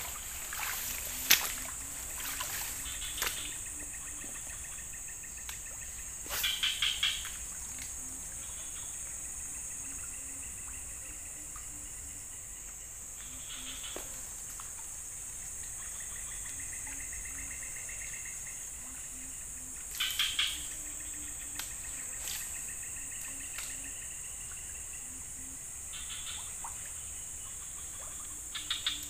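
A steady high insect drone, broken three times by a short burst of rapid clicking from a Shimano baitcasting reel as the line is cast and wound in: about six seconds in, about twenty seconds in and at the very end.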